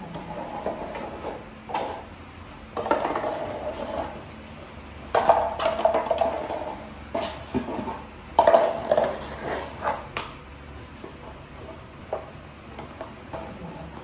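A hard plastic toy clattering and scraping on a tiled floor in irregular bursts as a chow chow puppy plays with it.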